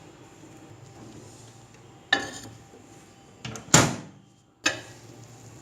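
Microwave oven door and dish handling: a click about two seconds in, a louder clunk a little before four seconds with a short ring, and another sharp click near five seconds.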